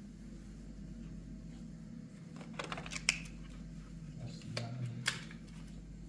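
A few sharp clicks and rustles of handling, in two clusters about halfway through and near the end, over a low steady hum.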